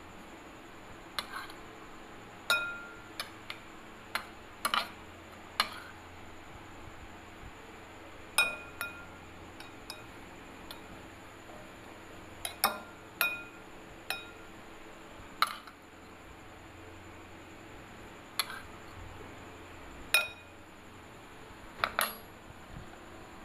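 A metal spoon clinking against a glass bowl while stirring a moist crumb mixture: irregular sharp clinks, some with a short ring, scattered a second or two apart.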